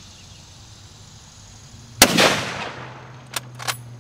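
A single rifle shot from a 1903 Springfield in .30-06, a sharp crack about two seconds in with a short echoing tail, followed a second or so later by two sharp metallic clicks.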